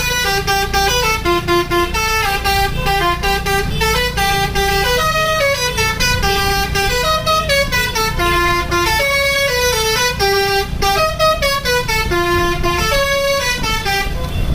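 Bus telolet horn, a set of multi-trumpet air horns, playing a fast melody of short notes over a steady low rumble. The tune stops near the end.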